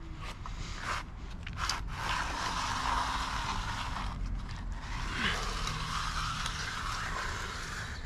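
Steel hand groover scraping through the surface of a fresh concrete slab as it is pushed along to cut a control joint. It makes a steady, gritty scrape with a few brief breaks.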